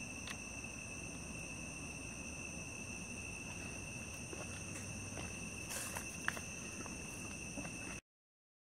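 Night insects, such as crickets, trilling steadily at several pitches over a faint outdoor hiss, with a few faint clicks about six seconds in. The sound cuts off to silence near the end.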